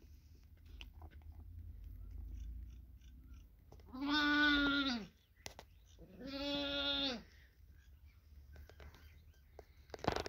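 A lamb bleating twice, each call about a second long and steady in pitch, about a second apart. Faint rustling and clicks of the lamb being handled sit under and between the calls.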